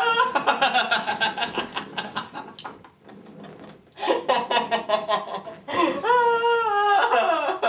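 A teenage boy laughing hard and uncontrollably in rapid fits, breaking off for a moment, then starting again and ending in one long, high-pitched drawn-out cry of laughter near the end.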